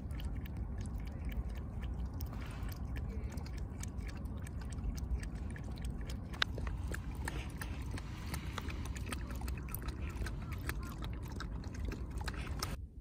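A cat lapping milk from a plastic tub: a fast, irregular run of small clicks over a low steady rumble, cutting off suddenly near the end.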